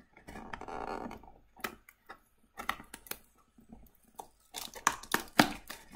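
Packing tape on a cardboard product box being picked at and torn open: a rough rasping rip, then scattered scratches and sharp clicks of cardboard and tape, loudest in the last second and a half.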